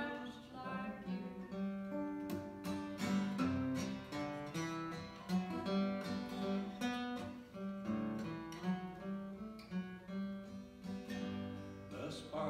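Acoustic guitar playing an instrumental break alone, picking a melody in separate notes over a steady low bass line.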